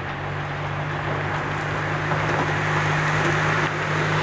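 PKP EP09 electric locomotive hauling a passenger train as it approaches: a steady low hum under a broad rushing noise that grows slightly louder.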